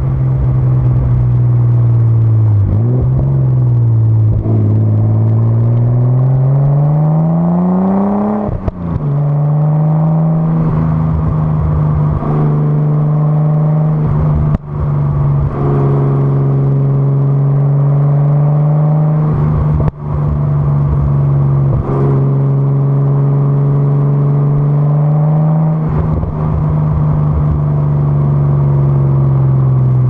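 Nissan R33 Skyline's RB25DET turbocharged straight-six exhaust on the move, heard right at the tailpipe. The note holds mostly steady, climbs in pitch for a few seconds before dropping sharply about eight seconds in, and breaks off briefly a few times.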